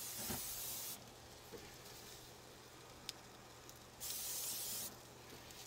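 Aerosol spray can hissing in two bursts onto slabs of polenta: one ends about a second in, and a shorter one comes about four seconds in.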